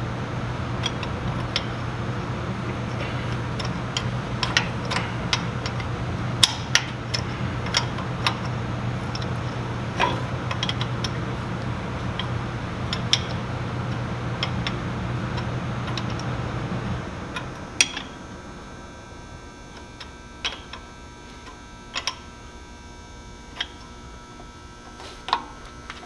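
Sharp metal clicks and clinks of a wrench working the nut on a tractor's rear brake linkage rod, scattered and irregular. Under them a steady mechanical hum runs and stops about 17 seconds in.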